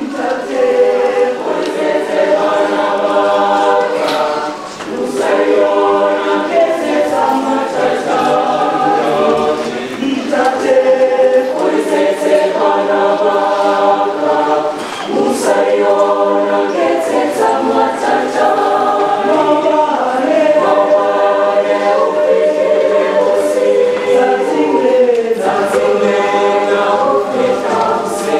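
High school choir singing unaccompanied, in phrases a few seconds long with short breaths between them.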